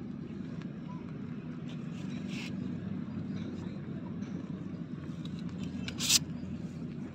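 A steady low engine drone runs throughout. A brief rustle comes about two and a half seconds in, and a short, louder knock or scrape about six seconds in.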